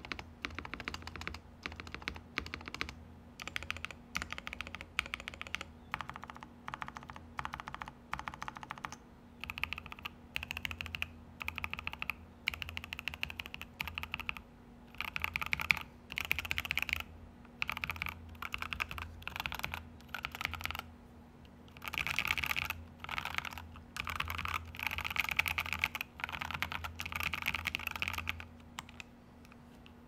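Typing on a KBD67 Lite R2 mechanical keyboard with Tecware Pearl Teal linear switches on a polycarbonate plate: fast runs of keystroke clacks in bursts, with a few short pauses.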